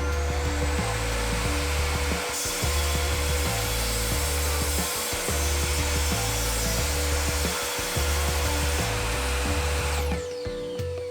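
Evolution R255SMS sliding mitre saw with an Evolution wood-cutting blade running, then cutting through a piece of wood from about two seconds in to about nine seconds. Near the end the motor is switched off and winds down with a falling whine. Background music with a steady beat plays underneath.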